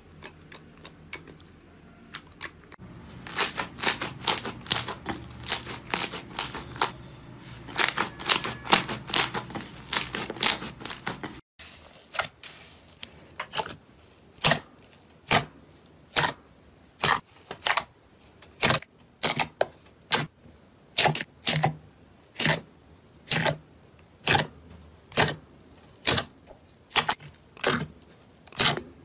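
Hand-worked slime popping and clicking as trapped air is squeezed out. At first a clear glitter slime is poked, giving dense, irregular crackling pops. After a sudden break, a thick foamy blue slime is pressed and folded in a plastic tub, giving sharp pops about one to two a second.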